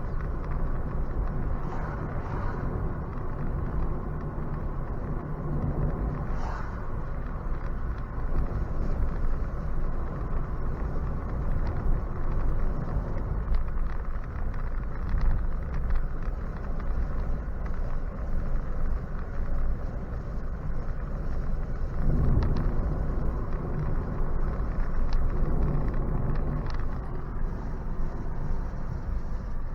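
Road and tyre noise inside a Nissan Leaf electric car on the move: a steady low rumble with no engine note, swelling briefly a few times.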